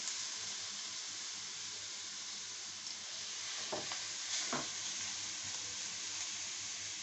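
Grated beetroot sizzling in hot ghee in a frying pan: a steady frying hiss, with a couple of soft knocks about four seconds in.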